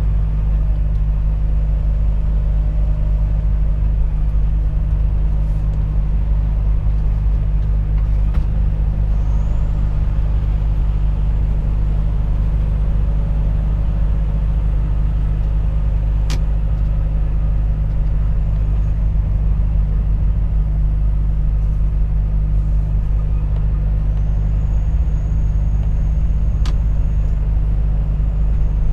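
Volvo FH 460 truck driving at a steady pace: its 13-litre six-cylinder diesel gives a steady low drone under road rumble.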